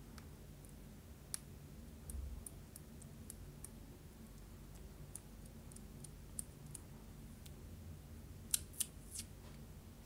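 Faint small clicks and ticks of hands handling a pair of Airox wired earphones, the plastic earbuds and cable, with a soft thump about two seconds in and three sharper clicks close together near the end.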